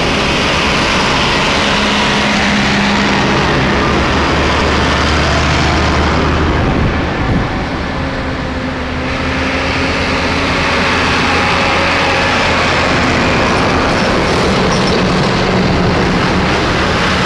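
Farm tractors driving past one after another at road speed, their diesel engines running steadily. The engine sound eases off briefly about halfway through, then builds again as the next tractors come close.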